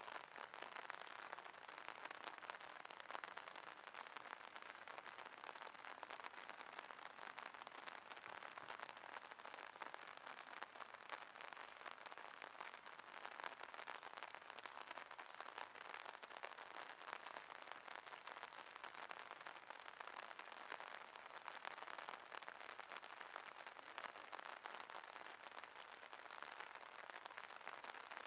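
Faint, steady rain: a dense patter of small drops falling on the water of a drainage ditch.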